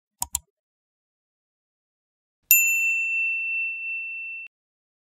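Two quick mouse clicks, then a single bell-like ding sound effect from a subscribe-button animation, a clear high tone that rings for about two seconds and cuts off abruptly.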